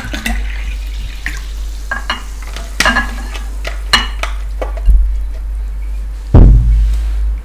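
Thick ogbono-okra soup sliding and slopping out of a ceramic bowl onto a plate, with scattered clicks and clinks of crockery. A heavy thump near the end is the loudest sound.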